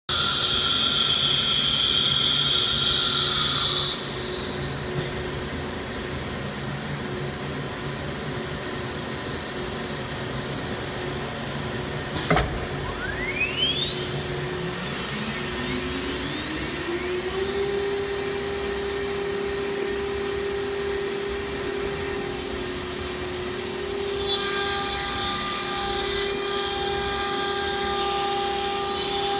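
CNC router with an automatic tool changer: a loud hiss of air for about four seconds, a sharp click about twelve seconds in, then the 9 kW spindle spinning up, its whine rising and levelling off into a steady high whine. From about three-quarters of the way through, further steady tones join it as the head moves into position over the board.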